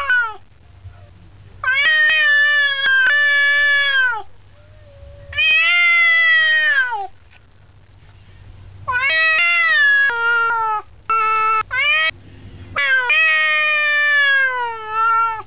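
Male domestic cat yowling at another male cat, a territorial warning. It gives four long, drawn-out, wavering calls, and the third is broken into several short pieces.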